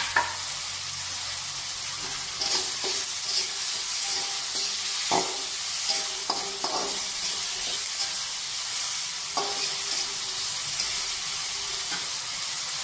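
Chopped shallots, garlic, chilli and tomato sizzling in hot oil in an aluminium wok while a perforated metal spatula stirs them, scraping and clinking against the pan every second or few. The aromatics are being stir-fried until fragrant.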